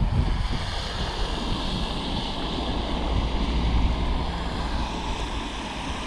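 Wind buffeting the microphone with a deep rumble, over a steady rush of sea surf and heavy rain.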